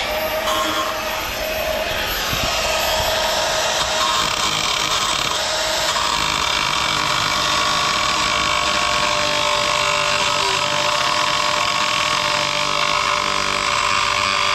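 Milwaukee cordless angle grinder running steadily with its cutting disc pressed into a boat captain's chair's metal pedestal tube, cutting through it: a loud, even grinding with a steady high whine.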